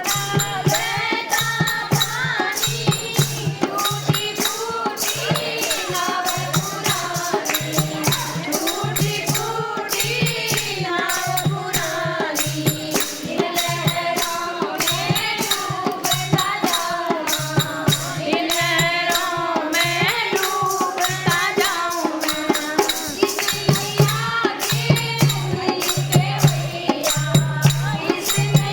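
A Hindu devotional bhajan sung in a melodic line, over a steady, fast beat of jingling hand percussion with regular low drum beats.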